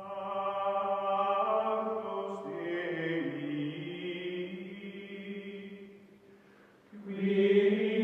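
Closing music of held, chant-like choral voices sustaining long chords. It fades low about six seconds in and swells back about a second later.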